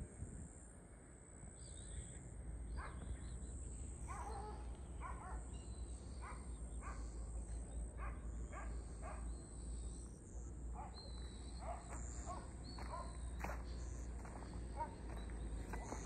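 Animal calls: a long series of short, repeated calls, about one or two a second, starting about three seconds in, over a low steady rumble.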